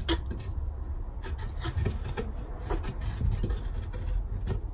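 Small scrapes and light metal clicks of gloved hands working a bolt into the actuator mounting of a turbocharger, over a steady low rumble.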